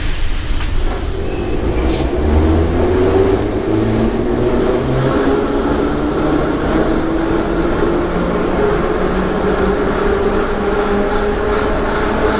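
Metro train heard from inside the car, pulling away: the traction motors whine up in pitch as it speeds up over the first several seconds, then hold a steady tone over the running rumble. Two sharp clicks come in the first two seconds.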